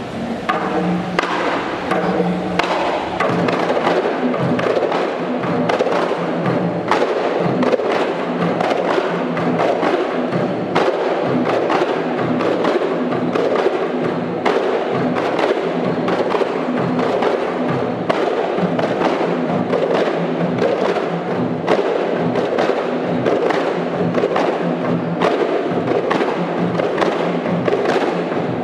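A troupe of kompang, Malay hand-held goatskin frame drums, struck by hand in a fast, steady interlocking rhythm with a pitched, repeating pulse.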